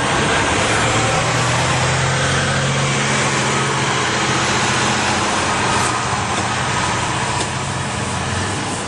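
A motor running steadily with a constant low hum under an even noise.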